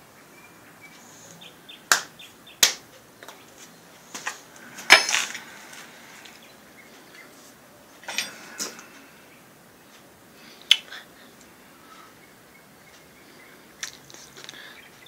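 Handling noise from front strut mount parts turned over in the hands: a scatter of sharp clicks and knocks, the loudest about five seconds in with a short rattle after it, and quiet stretches between.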